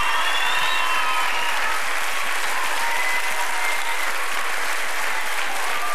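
Large studio audience applauding steadily after a song, with the last of the music dying away in the first second.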